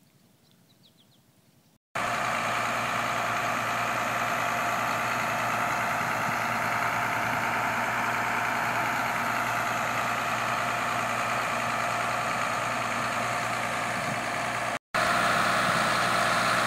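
Tractor engine running steadily under load, driving a PTO water pump that pushes lake water through a hose. It starts abruptly about two seconds in after near silence, and drops out for an instant near the end.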